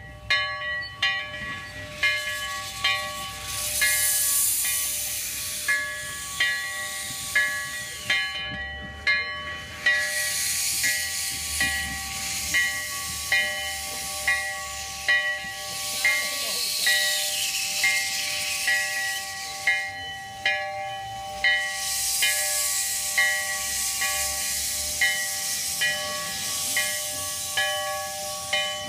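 Steam locomotive bell ringing steadily, about one stroke every three-quarters of a second, over a constant hiss of steam escaping around the cylinders as the narrow-gauge engine creeps forward.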